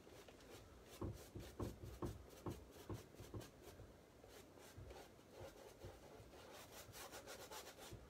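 Faint, irregular scratchy strokes of a paintbrush rubbing paint onto a canvas, the strokes coming quicker near the end.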